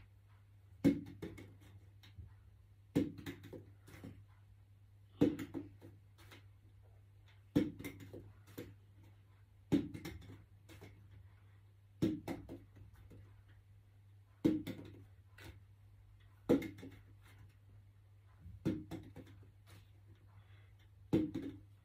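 Small plastic water bottle flipped again and again onto carpet, landing with a dull thud about every two seconds, about ten times. Each thud is followed by a few light knocks as the bottle tips over and is picked up.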